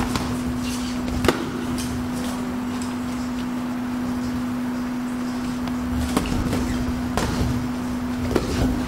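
Boxing gloves smacking on gloves and headgear during sparring: a few sharp slaps, the loudest about a second in and a cluster in the last three seconds, over a steady low hum.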